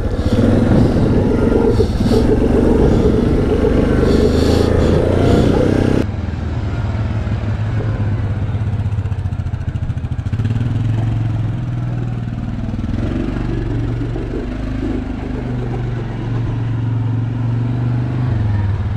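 Yamaha Grizzly 700 ATV's single-cylinder engine running as the quad rides along, heard close up for the first six seconds. After a sudden change it is heard from the roadside, quieter, its pitch rising and falling with the throttle as the quad passes and comes back.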